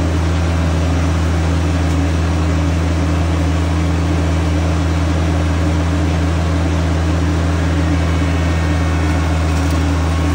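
Compact diesel tractor engine running at a steady idle: an even, low hum that holds without change.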